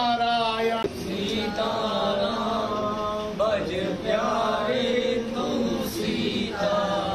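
A group of voices, adults and children, chanting a prayer together in unison, with held, sung notes.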